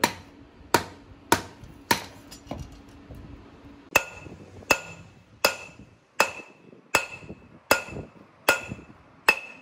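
A hand hammer striking steel on an anvil, forging twisted steel bar for a knife: steady blows a little faster than one a second, with a short pause just before the middle. The later blows ring with a high metallic tone.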